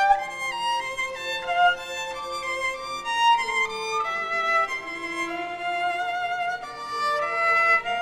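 Two violins playing a bowed melody together, held notes with vibrato moving from note to note, the two parts overlapping.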